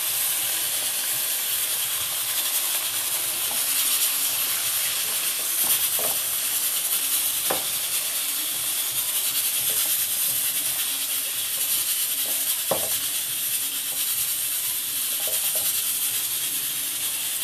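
Shrimp sizzling in hot oil in a wok: a steady frying hiss, with a spatula stirring them and a couple of short, sharper scrapes or knocks against the pan.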